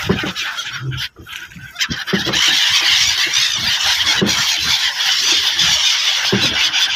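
A large flock of gulls calling all at once over water, a dense chorus of high squealing calls that swells to its loudest about two seconds in and holds there.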